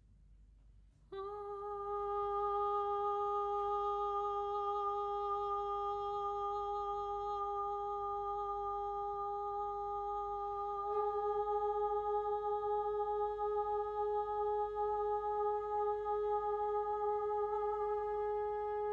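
A single long held musical note with no beat, entering suddenly about a second in and sustained steadily, stepping slightly higher in pitch about ten seconds in.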